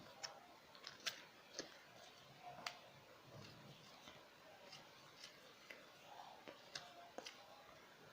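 Faint, scattered clicks and light taps of a utensil against a small container while a glue-and-toothpaste slime mixture is stirred and handled. They come several together in the first few seconds, then more sparsely.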